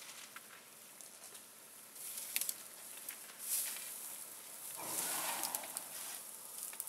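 Leaves and twigs rustling and crackling as an African elephant moves through dense bush and browses on the branches, with scattered sharp snaps. A louder rush of rustling comes about five seconds in.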